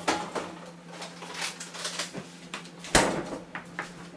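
Scattered clicks and knocks of kitchen items being handled and set down on a counter, with one louder knock about three seconds in, over a steady low hum.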